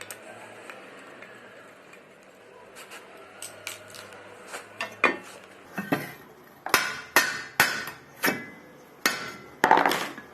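Sharp metal knocks and clanks as a brake disc is worked loose and pulled off a wheel hub: a faint low hum at first, then about ten hard strikes in the second half, the loudest near the end.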